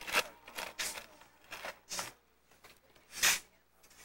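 Shovels scraping and digging into loose sand, a run of about five short scrapes, the loudest a little after three seconds in.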